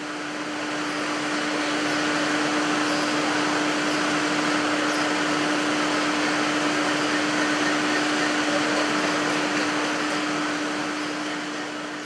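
BWE SheathEx 550 aluminium cable sheathing line running: a steady mechanical whir with a constant hum. It fades in over the first couple of seconds and fades out near the end.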